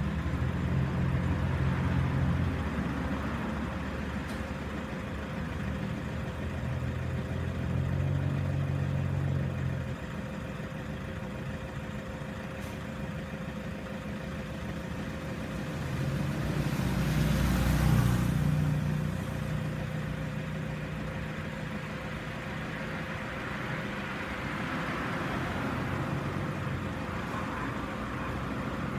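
Vehicle engine idling steadily, the low hum swelling and easing. About two-thirds of the way in, a broad rush of noise builds and fades.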